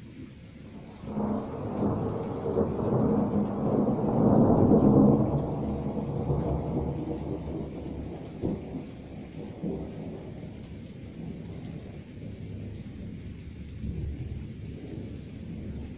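Thunder from a night thunderstorm: a long rumbling roll that starts about a second in, builds to its loudest a few seconds later, then slowly dies away, over a steady hiss of rain.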